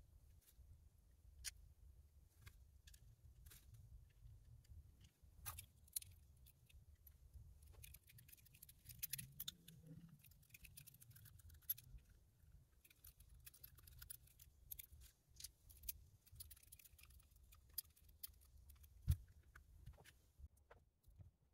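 Faint, scattered clicks and light taps of small plastic steering-wheel trim pieces and screws being handled and set down on a cloth-covered bench, with a short patch of rattling clicks and a sharper knock near the end.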